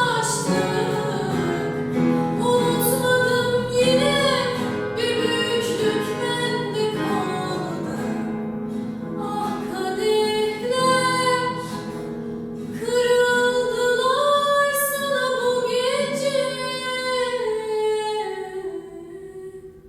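Female voice singing a song over instrumental backing, the last phrases held and then fading out near the end.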